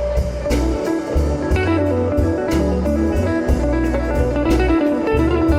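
Blues song between sung lines: a guitar plays over a steady bass line and drum beat.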